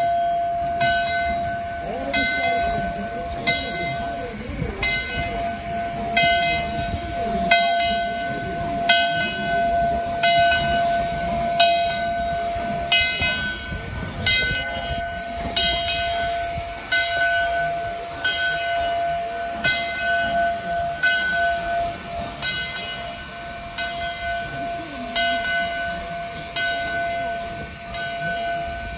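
Steam locomotive's bell ringing steadily, about one stroke every second and a half, its hum lingering between strokes, over the low rumble of the locomotive moving slowly.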